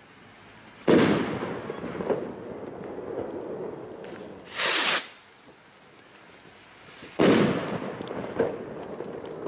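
Firework stick rockets: a sharp bang as one bursts about a second in, with a long fading echo. Near the middle a short whoosh as the next rocket launches, and it bursts with a second bang about two and a half seconds later, followed by a fading echo with faint crackles.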